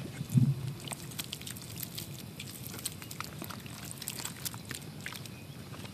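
Hands squelching and sloshing thick mud and water in a plastic tub, pressing a rifle down into it: a steady run of small wet splats and clicks. A brief low grunt-like sound about half a second in.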